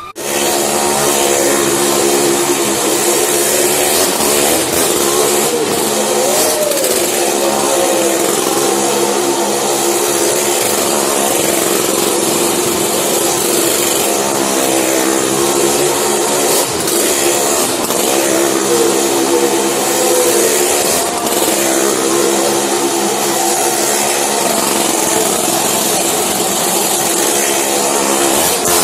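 Motorcycle engine running hard as it rides around the wooden wall of a well of death, loud and continuous with its pitch wavering up and down as the revs rise and fall.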